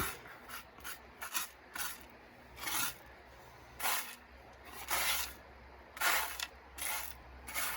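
Coarse paydirt gravel being stirred and spread by hand: a string of short, gritty scrapes and rasps, one every half second to a second.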